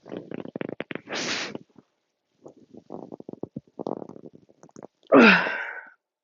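A woman burping repeatedly from fizzy soda she is chugging: rattling, croaky burps, a breathy rush about a second in, then a loud burp about five seconds in that drops in pitch.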